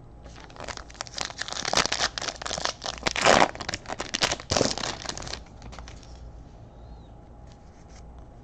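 A foil trading-card pack being torn open: crinkling and ripping of the wrapper for about five seconds, loudest near the middle, then stopping.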